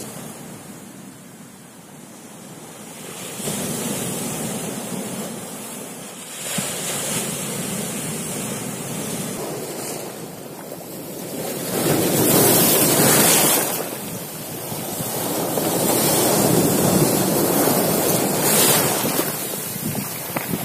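Sea surf breaking and washing in over a pebble and boulder shore, swelling and ebbing in surges, with the loudest wave about twelve seconds in.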